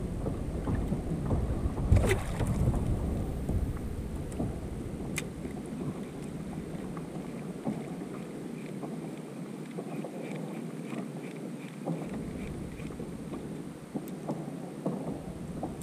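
Wind buffeting the microphone over water lapping against a plastic kayak's hull, with a couple of sharp clicks; the wind rumble drops away about six seconds in.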